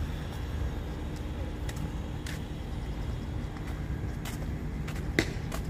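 Steady low rumble of road traffic, with a faint steady hum through the middle and a few sharp clicks, the loudest near the end.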